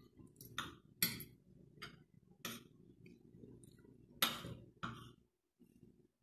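Metal spoon and fork clinking and scraping against a ceramic plate while eating, in a series of irregular clinks, the loudest about four seconds in.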